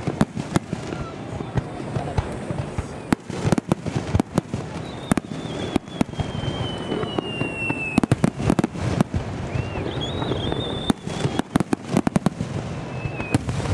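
Fireworks starmine barrage: dozens of shells bursting in quick, irregular succession, sharp bangs over a continuous crackle. A thin whistle glides slowly down about halfway through.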